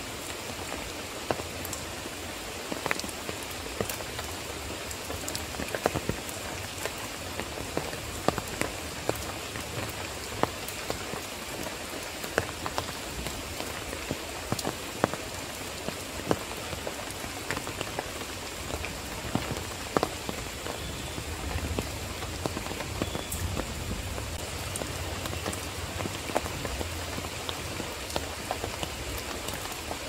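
Steady rain falling on dense leafy plants: an even hiss with many sharp, separate drips landing on the leaves.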